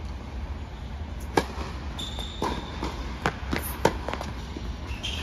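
Tennis rally on an indoor hard court: a series of sharp pops from the ball coming off racket strings and bouncing on the court, the loudest about a second and a half in. A short high squeak, typical of a sneaker on the court, comes around two seconds in.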